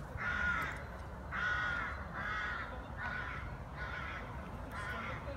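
Crow cawing over and over, a steady series of short harsh caws a little under a second apart.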